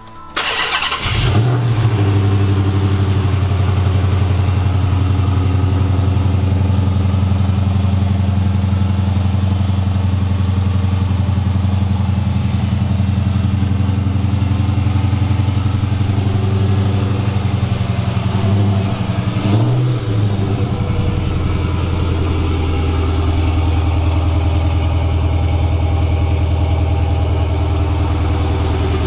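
A 2007 Dodge Charger R/T's 5.7 L Hemi V8 is cranked and fires about a second in, then runs at a steady idle through new JBA long-tube headers, catted mid pipes and an SLP exhaust. About two-thirds through, the engine note rises briefly twice before settling back to idle.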